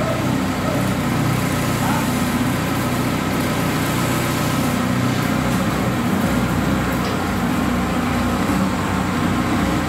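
Iseki 3510 tractor's diesel engine running steadily while the tractor moves slowly.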